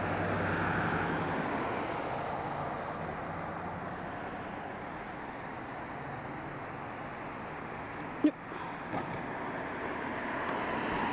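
Road traffic noise from passing cars: a steady rush that swells near the start and again near the end, with one sharp click a little after eight seconds in.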